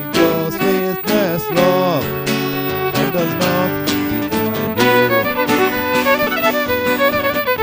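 Fiddle playing the melody with sliding, ornamented notes over guitar accompaniment, in an instrumental passage of a traditional Irish song.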